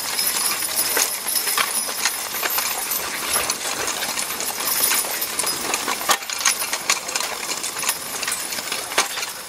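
Horse team pulling a Pioneer Homesteader plow through dry, hard ground: irregular metallic clinks and rattles from harness and plow over a steady rush of noise, with hoof steps.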